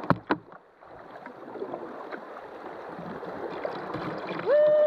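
Water rushing and splashing around a kayak's hull as it runs down a shallow riffle, growing louder through the stretch. It opens with two sharp knocks, and near the end a brief high-pitched tone sounds over the water.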